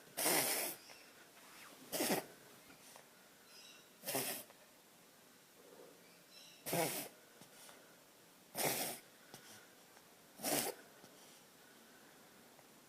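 A dog reverse sneezing and gag coughing: six short, harsh bursts about two seconds apart. The vet reads this as a sign of an inflamed pharynx, most likely from an allergy.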